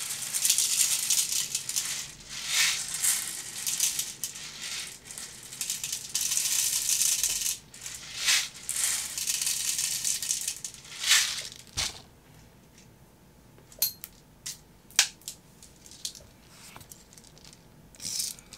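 Plastic 0.2 g airsoft BBs rattling as they are poured and shaken into a BB loader, in bursts for about eleven seconds. After that it goes quieter, with a few separate sharp clicks as the loader is handled.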